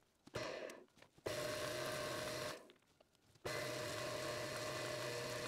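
Small metal lathe running under its electric motor, driven by a 3D-printed TPU flat belt that has been dressed with belt wax. It is a steady hum with a whine, heard in four short stretches that start and stop abruptly.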